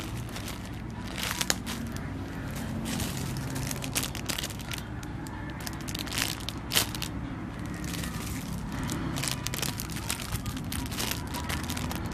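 Plastic packaging crinkling and crackling as it is handled, in irregular bursts with a few louder crackles.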